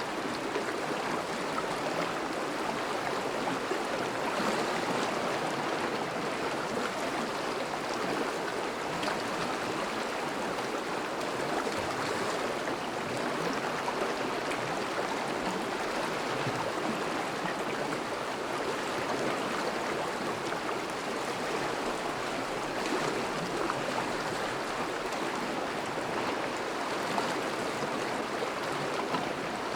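Thawing river flowing steadily, a continuous rush of running water with small gurgling flickers.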